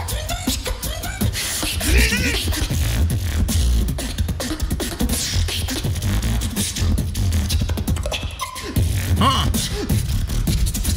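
Competition beatboxing through a stage sound system: one beatboxer making a deep bass line under quick clicks and sliding vocal tones.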